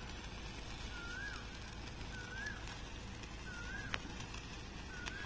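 A long red stick sparkler burning with a steady fizz. A bird's short rising-and-falling chirp repeats about once a second, and two faint sharp clicks come near the end.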